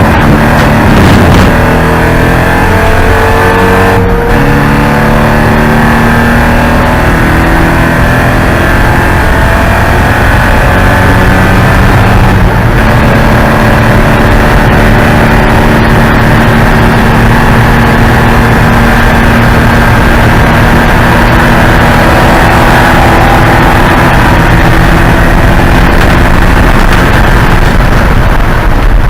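Porsche 944 race car's four-cylinder engine running hard at racing speed, its pitch climbing under acceleration, with sharp shifts about four and twelve seconds in as gears change.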